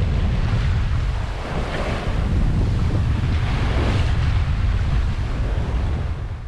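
Wind buffeting the microphone over the rush and wash of waves around a sailboat under way, the water swelling louder twice.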